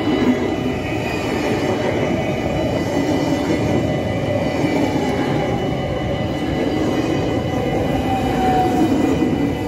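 Yellow-and-blue NS double-deck passenger train passing close by at speed, its wheels running on the rails in a steady, loud rumble.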